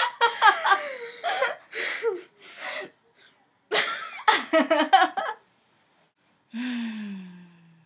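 A girl laughing in quick bursts, with breathy gasps and squeals that glide in pitch. Near the end comes one long vocal note that slowly falls in pitch.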